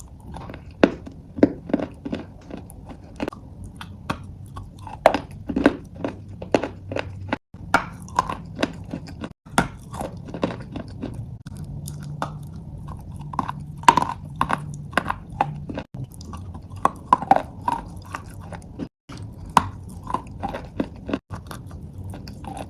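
Someone biting and chewing pieces of eating chalk, with many irregular sharp crunches. The sound cuts out briefly a few times between takes.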